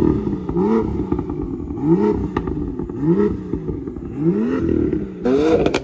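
Stock BMW M2's turbocharged straight-six revved in short blips at standstill through its factory exhaust, about five rising revs roughly a second apart.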